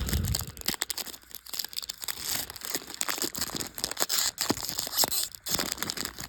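Foil wrapper of a Topps Chrome trading-card pack crinkling and tearing as it is worked open by hand, in quick irregular crackles.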